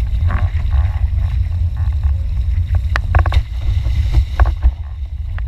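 Wind buffeting the microphone of a board-mounted action camera on a moving windfoil board, over rushing and splashing water. A few sharp knocks come about three seconds in.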